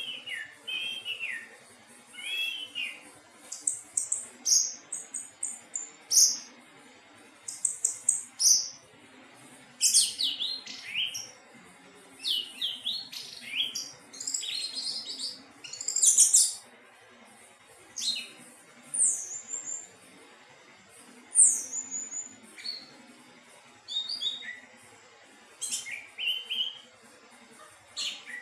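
Anis teleng thrush singing: a long run of short, varied whistled and chirping phrases, many sliding up or down in pitch, with brief pauses between them.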